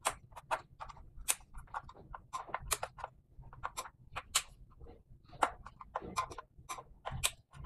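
Irregular light clicks and taps of hand tools and wires being worked at the terminals of an old mechanical electricity meter, as its wiring is disconnected.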